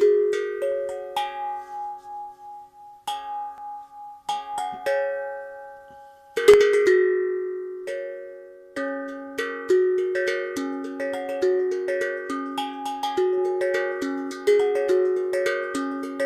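Steel tongue drum (a Logik drum tuned to 432 Hz) played with the fingers: single ringing notes struck about a second apart, a louder hit about six seconds in, then a quicker run of overlapping notes.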